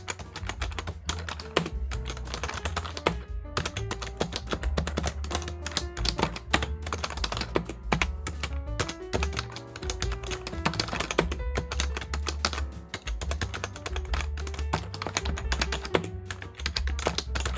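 Continuous fast typing on a PFU HHKB Professional Hybrid, the standard non-silenced (not Type-S) model with electrostatic capacitive key switches, giving a quick run of key clicks. Background music plays underneath.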